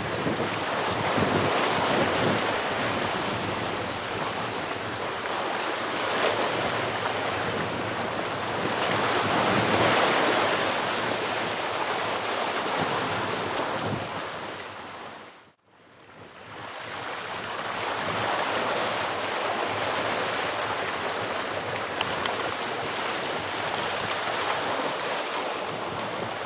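Ocean surf washing over shoreline rocks, swelling and easing, with wind buffeting the microphone. About halfway through, the sound dips away sharply for a moment and then returns.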